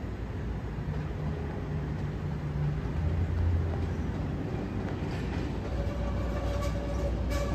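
CTA 5000-series rapid-transit train approaching over the yard trackwork, with a steady rumble of wheels on rail. A steady whine joins about two-thirds of the way in, and a few clicks from the track come near the end.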